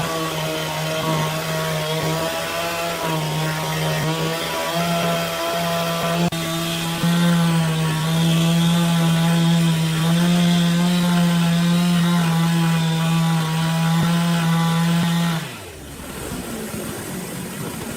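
Power saw cutting wood, its motor running steadily under load. About fifteen seconds in it winds down, dropping in pitch and level.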